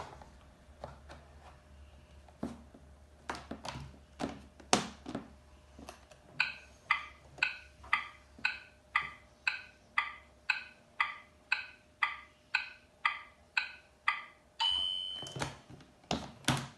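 Play-Doh toy oven's plastic parts clicking and knocking as it is worked by hand, then its electronic timer sound ticking about twice a second for about eight seconds. The ticking ends in a single fading ding that signals the baking is done.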